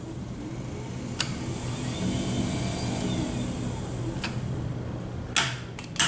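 Power wheelchair drive motors on a test bench whirring under remote control, their whine rising in pitch and then falling back over a couple of seconds above a steady low hum. Two light clicks, one about a second in and one near the end.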